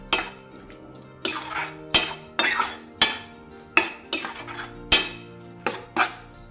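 Steel spoon clanking and scraping against a stainless steel pan while stirring thick eggplant mash: repeated sharp metallic strikes, roughly one or two a second, each with a short ring.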